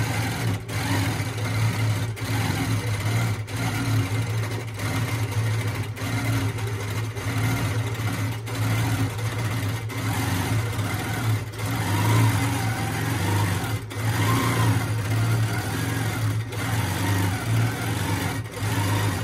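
Longarm quilting machine stitching steadily in free motion, in stitch-regulated cruise mode, its motor humming as the needle runs.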